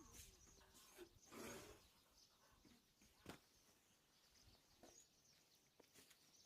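Near silence: faint scattered clicks and rustles, with a soft rustle about a second and a half in and a sharp click about three seconds in.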